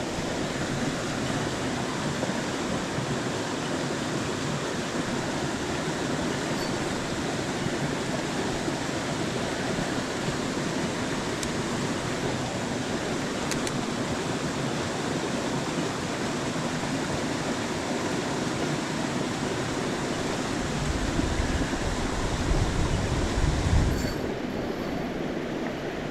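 Flowing river water, a steady rushing. Wind buffets the microphone with a low rumble for a few seconds near the end.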